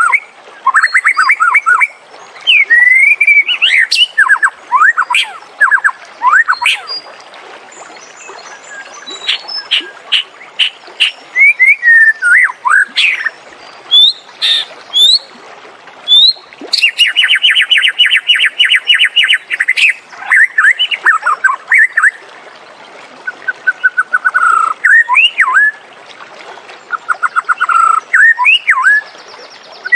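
White-rumped shama singing a varied song of clear whistles, quick trills and sliding notes in short phrases, with one long fast trill held for about three seconds midway.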